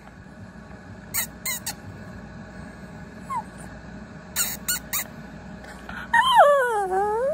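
Two quick sets of three sharp smacking clicks, then a Pomeranian gives one long whining howl about six seconds in, its pitch sliding down and then back up.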